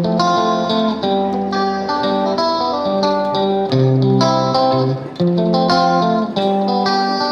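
Background music led by guitar, a plucked melody of notes changing about every half second.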